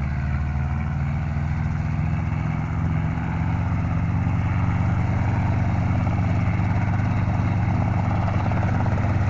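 Helicopter taking off: its rotor beats fast and evenly over the engine's steady low running, growing a little louder about three seconds in.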